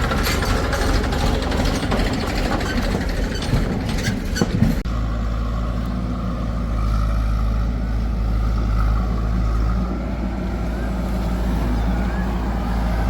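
Heavy diesel machinery engine running, with clattering and sharp knocks over the first five seconds or so, then switching abruptly to a steady, even engine drone.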